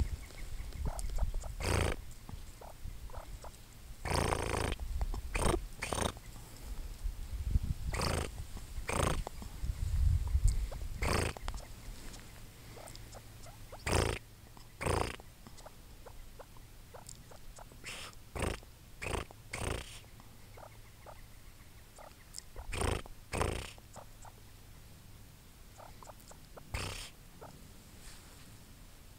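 Short rustles and taps close to the microphone, coming irregularly and often in pairs, with a low rumble through roughly the first twelve seconds that then dies away.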